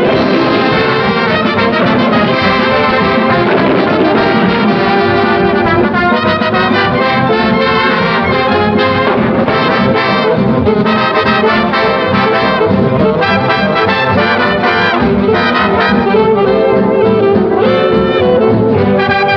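Instrumental music led by brass instruments.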